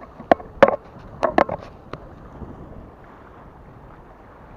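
Small waves slapping and splashing against breakwater rocks: a quick cluster of sharp splashes in the first two seconds, then a steady wash of water and wind.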